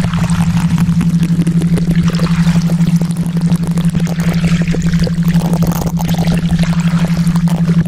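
A steady low hum, the theta-wave tone of a subliminal track, under a crackling running-water noise like pouring rain. The loudness pulses quickly and evenly, several times a second.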